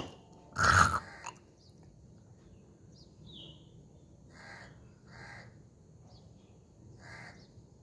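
A person hawking once, loud and harsh, less than a second in, forcing up thick phlegm from a chesty cold. Then a bird calls three times, a short harsh call each time, over faint outdoor background noise.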